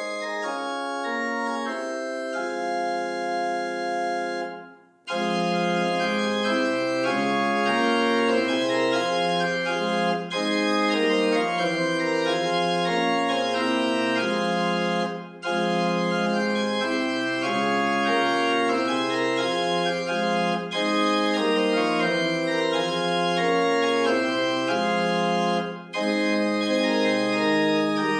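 Organ playing sustained chords. After a brief pause about five seconds in, it comes back fuller, with deep bass notes, in phrases of about five seconds separated by short breaks.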